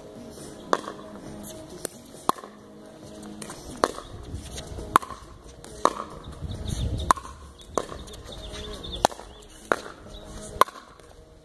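Pickleball rally: sharp, hollow pops of paddles striking the plastic ball, about once a second, some ten or eleven in all.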